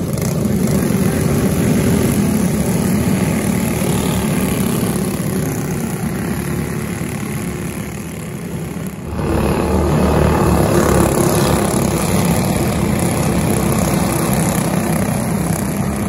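Several kart engines running together, the Tillotson four-stroke singles of the karts on the grid, as the karts pull away. About nine seconds in the sound changes abruptly to louder engine noise.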